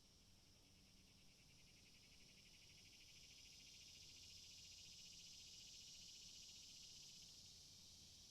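Cicadas buzzing in a high, steady drone with a rapid pulsing texture, swelling louder about three seconds in.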